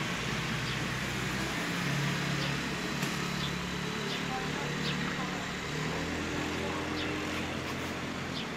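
Indistinct voices of people in the street over a steady hum of outdoor and traffic noise, with short high chirps every second or so.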